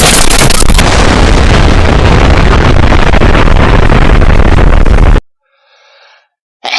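Loud explosion sound effect, a long blast with a heavy low rumble that cuts off suddenly about five seconds in. After a moment of silence comes a faint short sound, and another loud blast starts right at the end.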